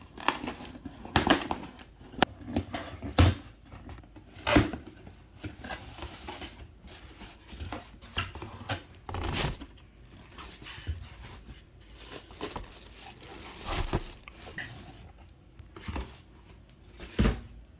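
Shipping packaging around a keyboard box being handled and opened: irregular knocks and thuds with rustling and scraping.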